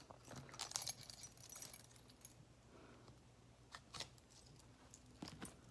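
Faint rustling and a few light clicks from a paper scratch-off lottery ticket being handled.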